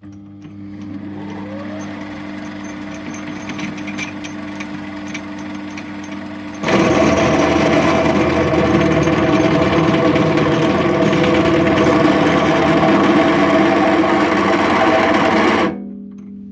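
Lathe motor starting and running with a steady hum. About seven seconds in, a loud harsh grinding begins and runs for about nine seconds: an unhardened drill bit being fed into mild steel, rubbing and being chewed up instead of cutting. The grinding stops suddenly near the end and the motor winds down.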